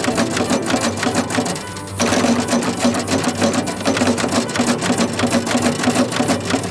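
Home-built twin-cylinder piston-valve steam engine running fast with no load, a dense, rapid, even clatter of its valve gear and exhaust beats. It eases off briefly just before two seconds in, then picks up again.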